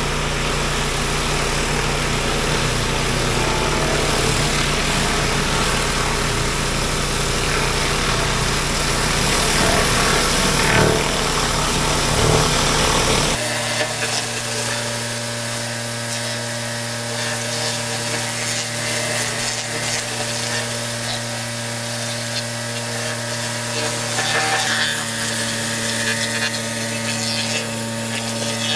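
Pressure washer running with its water jet spraying against a patio: a steady motor hum under a hiss of spray. About halfway through the hum changes pitch and the hiss changes character abruptly, then holds steady again.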